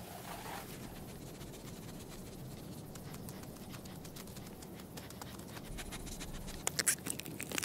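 Faint scratching and light pattering of a long-eared hedgehog's paws scuffling over dry soil and grit, with a short run of sharper clicks near the end.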